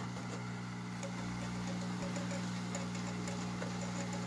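Hot-air rework gun running at maximum airflow: a steady low hum with a faint hiss of air, as it melts the solder on a chip's pins to desolder it.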